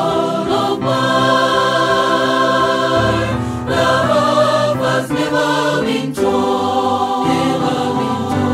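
Mixed youth choir of male and female voices singing a gospel hymn in parts, holding long sung chords.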